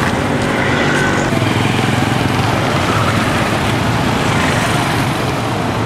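Street traffic dominated by small motorcycle engines running close by: a loud, steady engine hum mixed with road noise.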